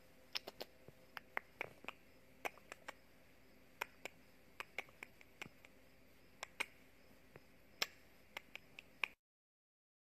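Irregular sharp clicks and ticks, a few dozen of them at uneven spacing, over a faint steady hum; all of it cuts off suddenly about nine seconds in.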